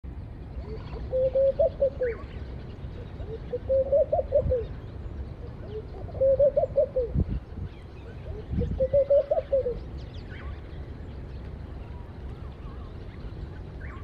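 Laughing doves cooing: four phrases a couple of seconds apart, each a quick run of short notes that rises and falls. A steady low background noise and a few faint chirps from small birds run underneath.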